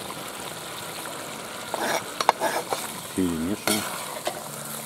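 Stew simmering and sizzling in a cast-iron kazan as freshly added potatoes and peppers are stirred in. A metal spoon scrapes and clicks against the pot, and a short low cry comes a little past three seconds in.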